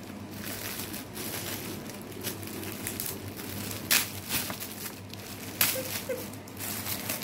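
Shiny red metallic gift wrap and silver foil crinkling and crumpling as a present is unwrapped by hand. A steady rustle is broken by sharper crackles, loudest about four seconds in and again about a second and a half later.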